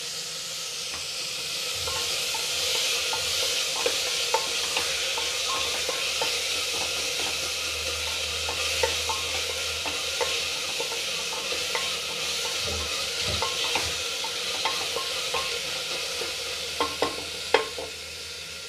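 Tomatoes, onion and masala sizzling steadily as they fry in oil in an aluminium pressure cooker, salted so the tomatoes soften. A wooden spatula stirs them, scraping and tapping against the pot, with a few louder knocks near the end.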